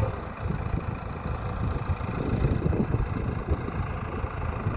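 Diesel engine of a JCB 3DX backhoe loader idling, an uneven, choppy low rumble.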